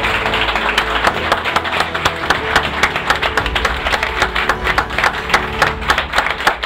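A crowd of ferry passengers applauding: many hands clapping in a dense, irregular patter that keeps going.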